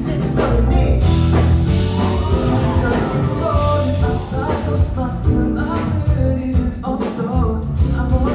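Live band music with a singer, a pop-rock song played on stage.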